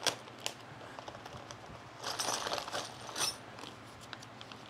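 Small knife slitting open a plastic bag of nuts and bolts, with sharp clicks near the start. Then bursts of plastic and paper crinkling about two and three seconds in as the bag and a paper sheet are handled, with small ticks of the hardware between.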